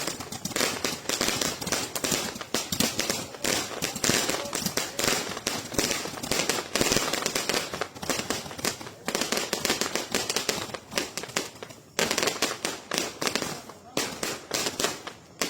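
Bazuca 888 destellos firework crackling without let-up, a dense stream of rapid sharp pops. There is a short lull about twelve seconds in, then the crackling starts again.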